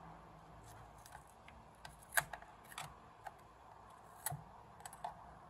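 Faint, scattered clicks and light scrapes of metal and plastic pry tools working at the plastic end cap of an aluminium power bank case. The sharpest clicks come about two seconds in and just after four seconds.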